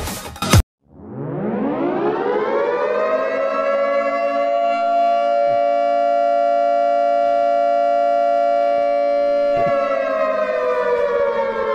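Air-raid siren winding up from a low growl to a steady wail, holding its pitch, and beginning to wind down near the end.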